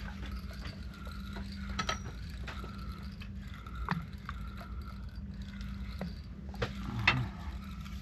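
Fishing reel clicking irregularly as a hooked fish is wound up, with a few sharper knocks of tackle among the clicks, over a steady low hum.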